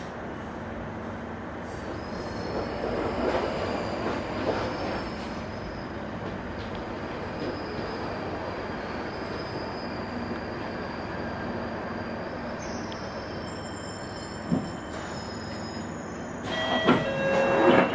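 Northern line 1995 Stock tube train running and slowing into a station, heard from inside the carriage, with a faint steady high whine. A loud squeal near the end as it comes to a stop.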